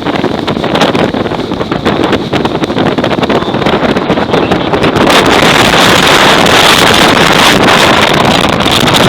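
Typhoon wind blowing hard and buffeting the microphone with a dense rushing roar, growing louder and steadier about five seconds in.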